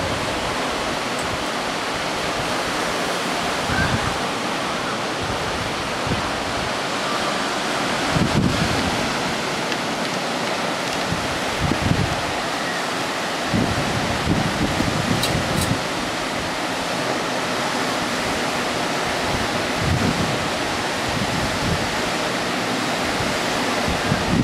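Ocean surf breaking on a sandy beach, a steady wash of noise. Every few seconds there is a brief low rumble from wind on the microphone.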